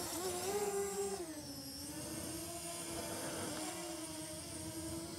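DJI Mini 2 drone's propellers buzzing in flight, with a steady pitch that rises slightly, drops about a second in as the drone moves, then holds steady.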